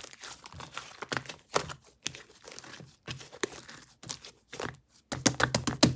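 Strawberry-milk slime being squished and pressed by hand, giving irregular sticky clicks and crackling pops, with a fast run of clicks near the end.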